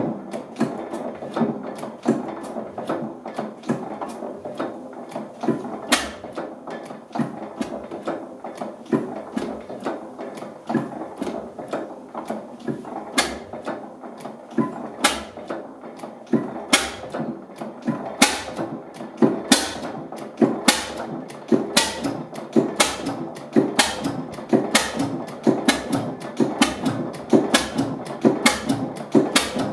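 Vintage single-cylinder stationary engine with twin flywheels running, with a continuous clatter of valve gear and rods. Sharp firing bangs stand out, only a few and far apart in the first half, then coming about once a second or faster in the second half.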